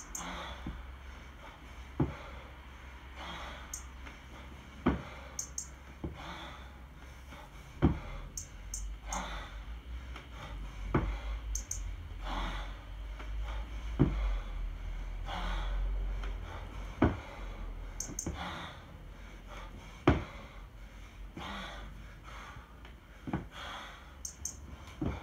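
Hard, rhythmic breathing of a kettlebell lifter working through one-arm jerks with a 24 kg bell, with sharp gasping breaths between reps. A short dull thud comes about every three seconds, eight times, as each rep lands.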